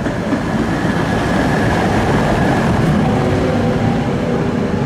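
Tatra T3 tram passing close by on street track, with a steady rumble of wheels on the rails. A steady whine comes in about three seconds in as the tram pulls away.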